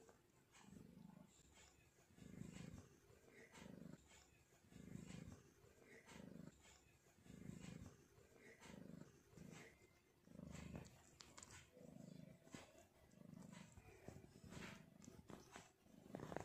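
Domestic cat purring close by, a soft, even purr that swells and fades with each breath in and out.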